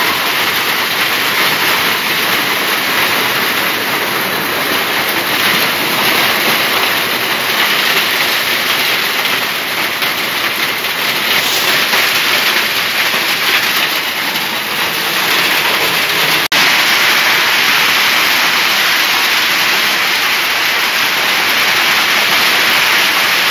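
Hailstones and heavy rain pelting down onto wet concrete and foliage: a loud, dense, steady hiss of impacts. It cuts out for an instant about two-thirds of the way through.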